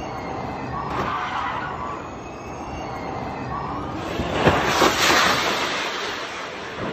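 Formula E electric race cars running with a high whine and tyre noise, then a loud crash about four and a half seconds in as a car strikes the wall and flips, with a second or so of scraping and debris after it.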